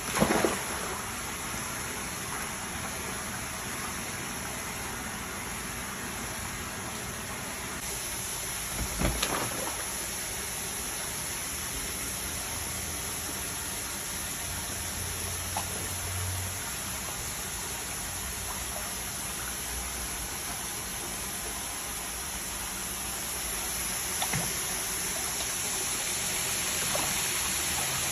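Steady rushing of running water, with a few short knocks: one right at the start, one about nine seconds in and a smaller one near twenty-four seconds.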